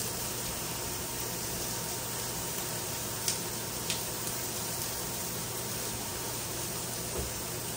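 Chicken sizzling with a steady hiss on a stovetop grill pan over gas burners. Two light clicks about three and four seconds in.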